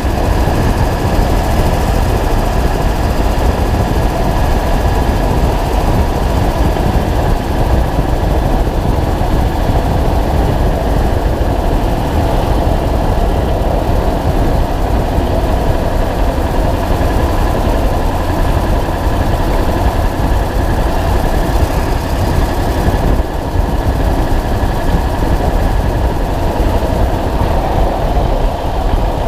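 2000 Ford F250's 7.3 L Power Stroke turbo-diesel V8 running steadily, heard close from beneath the truck at the suspension spring, with the tick of an exhaust leak.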